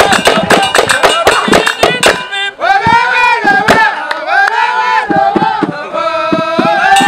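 Men's folk troupe singing together to fast hand-drum beats and clapping. About two and a half seconds in, the percussion drops away and the men sing a long unison chant. Quick strikes return near the end.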